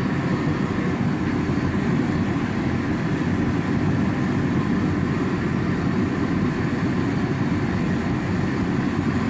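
Endress diesel forced-air heater running: fan and burner flame give a steady, even rushing noise while the combustion chamber heats up towards red glow.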